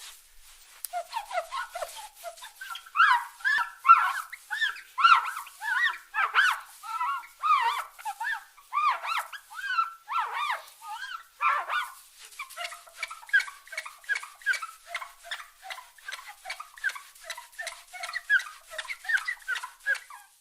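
Mirror glass being rubbed, squeaking in quick short chirps several times a second, louder through the first half and lighter and quicker toward the end.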